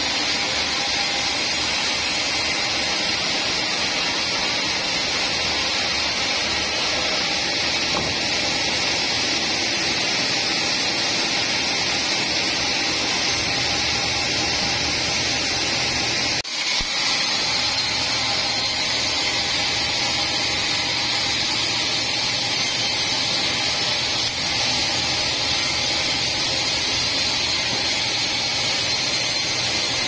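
Band sawmill running, its vertical band saw blade cutting along a teak log: a steady, loud, hissing saw noise that dips for a moment about halfway through.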